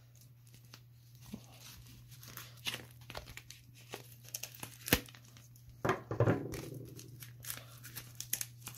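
Black plastic bubble mailer being cut and torn open, its plastic crinkling and rustling, with scattered clicks and one sharp click about five seconds in.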